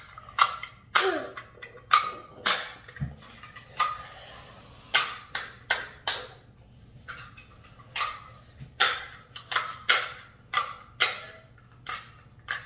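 A string of sharp plastic clicks, irregular at about one to two a second, from a small pink plastic squirt toy being pressed and handled by hand.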